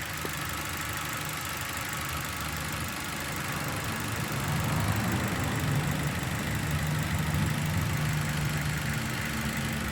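Dongfeng Glory's engine idling unevenly with a misfire. An exhaust valve that seals poorly lets compression escape, leaving the engine unbalanced.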